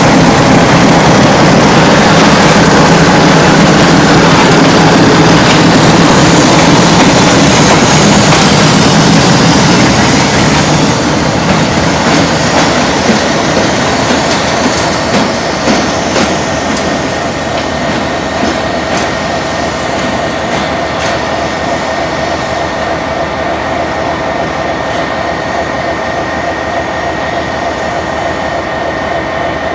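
CFR Class 60 Sulzer-engined diesel-electric locomotive running close past, its engine and running gear loud. After about ten seconds the sound slowly fades as the locomotive moves off, and a steady high whine comes through over the engine.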